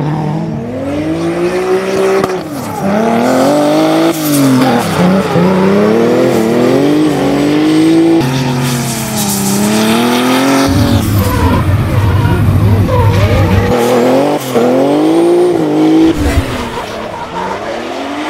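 500-horsepower turbocharged BMW M3 E36 drift car revving hard up and down over and over through a drift, its engine pitch climbing and dropping every couple of seconds, with tyres squealing as they spin and slide.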